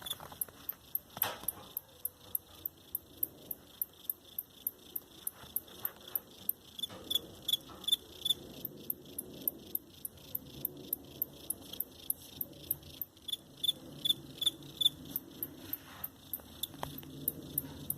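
A cricket chirping: short, high-pitched chirps repeated evenly at about three a second.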